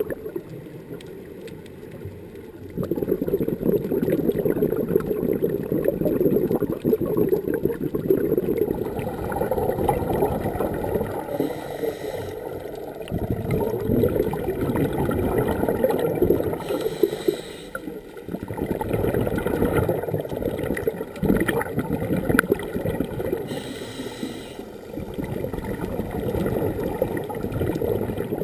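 Scuba regulator breathing heard underwater: exhaled bubbles rumbling and gurgling for several seconds at a time, broken by short hisses of inhalation.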